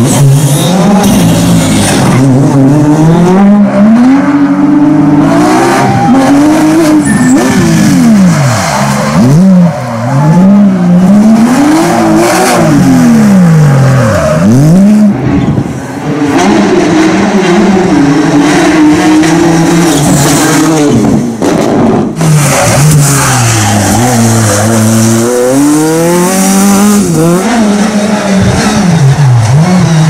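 Rally cars' engines revving hard as they pass one after another, the pitch climbing to high revs and dropping sharply at each gear change or lift, again and again.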